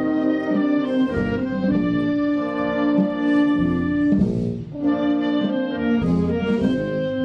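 A brass band playing a slow Holy Week processional march, with sustained brass chords that change every second or so.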